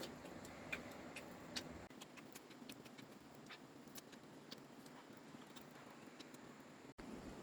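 Faint, irregular small clicks and ticks over a quiet background hiss, with a brief cut-out near the end.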